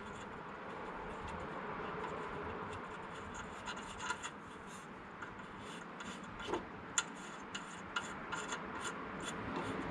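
Light rubbing and scraping with small sharp metallic clicks as 10 mm bolts are fitted by hand, the clicks coming more often in the second half.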